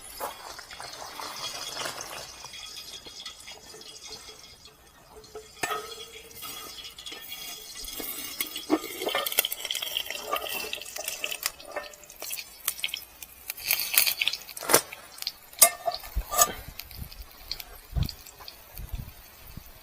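Cookware being handled: scattered metal clinks and knocks, with wet dripping sounds between them.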